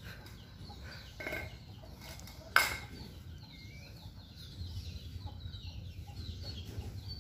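Chickens clucking, with one sharp knock about two and a half seconds in.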